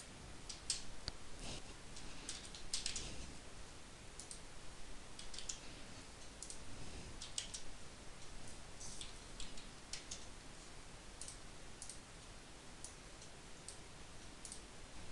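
Faint, irregular clicking of a computer keyboard being typed on.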